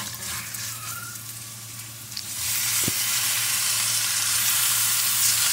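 Raw lamb pieces scraped off a plate into a pan of hot oil, garlic, ginger and coconut. A low frying sizzle jumps about two seconds in to a loud, steady sizzle as the meat hits the oil.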